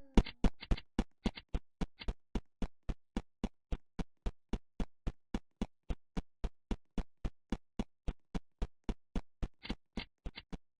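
Electronic music stripped down to a steady drum-machine beat: short sharp clicks at about four a second, with a few brighter hits in the first second and again near the end.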